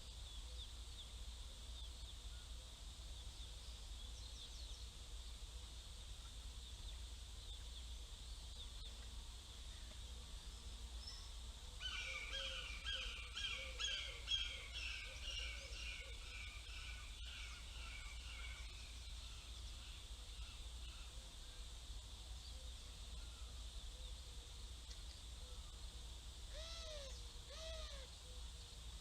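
Hawk calling: a fast run of short, repeated high calls for about seven seconds, starting about twelve seconds in, then three separate arched calls near the end, over a steady low background hum.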